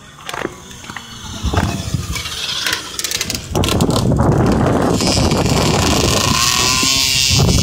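Pocket bike's small engine growing loud as the bike comes past close by. Near the end the engine revs up, its pitch rising as it accelerates out of the corner.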